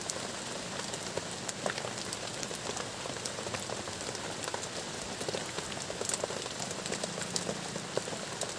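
Steady rain falling on a plastic tarp shelter: an even hiss dotted with many sharp ticks of single drops.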